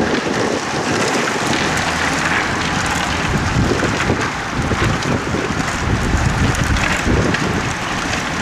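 A road-racing peloton passing close over cobblestones: tyres and bikes rattling irregularly on the cobbles, with wind buffeting the microphone.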